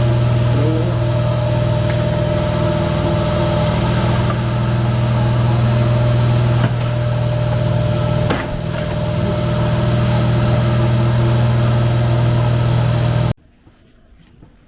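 Steady low machine hum with a faint crackle over it, cutting off abruptly near the end.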